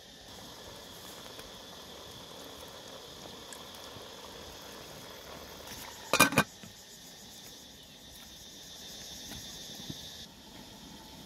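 A metal lid is set onto an aluminium cooking pot, a brief metallic clatter of a few quick strikes about six seconds in. Under it runs a steady high chirring of insects.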